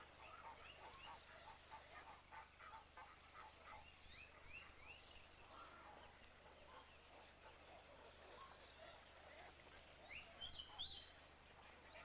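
Faint chorus of many short, rising chirping calls from birds in a nesting colony, with a brief louder cluster of higher calls about ten and a half seconds in.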